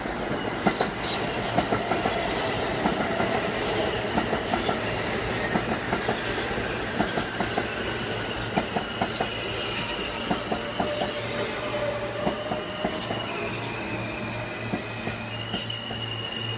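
An NYC Subway R160 train runs past on the adjacent track, its wheels clicking repeatedly over the rail joints. In the second half, high steady whines join in and step from one pitch to another.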